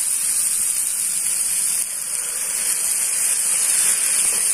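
Onions, tomatoes and peppers sizzling in a frying pan with a steady steamy hiss, just after a quarter cup of water has gone in, while a wooden spatula stirs them.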